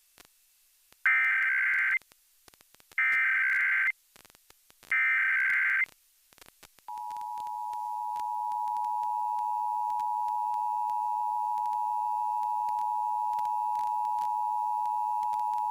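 Emergency Alert System SAME header: three bursts of warbling digital data tones, each about a second long and about a second apart. Then, about seven seconds in, the steady two-tone EAS attention signal starts and holds for nearly nine seconds. Together they mark the start of an alert, here the national test.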